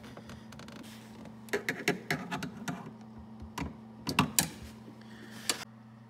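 Irregular clicks and light knocks from hands working a plastic wiring-harness connector. They come in clusters about a second and a half in, around two seconds, and about four seconds in, with a last sharp click near the end. The connector to the door handle assembly is being unclipped.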